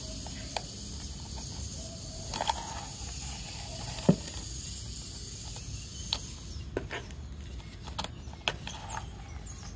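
Light rustling with scattered small clicks and taps as hands press a coconut's fibrous root ball down into loose cocopeat in an enamel bowl, the sharpest tap about four seconds in. A steady faint high hiss runs underneath.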